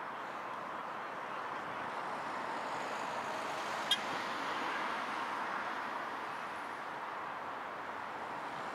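Steady street traffic noise from passing cars, with a tram rolling toward the crossing on its rails. One short, sharp click about four seconds in.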